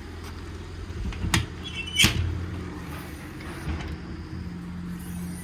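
A steady low engine hum, with a light click a little over a second in and a louder sharp metallic clack about two seconds in.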